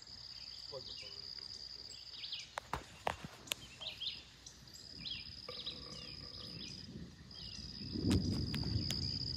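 Insects buzz in a steady high drone that stops and starts every few seconds, with scattered bird chirps and a few sharp clicks. About eight seconds in, a low rumble of distant thunder swells up and is the loudest sound.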